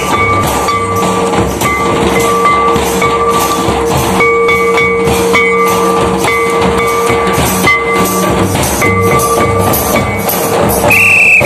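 Folk dance music: a hand-played barrel drum beating a fast, dense rhythm under a steady held tone. Near the end a whistle sounds loudly in short blasts.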